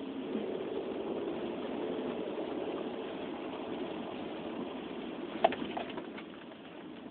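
Opel Vectra 3.2-litre V6 engine running steadily; the engine has been logging misfire codes (random misfire and cylinders 4 and 6). A sharp click comes about five and a half seconds in, followed by a few lighter clicks.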